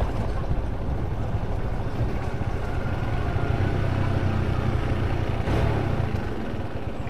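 Honda motorcycle's engine running steadily at low speed while riding, a low even rumble.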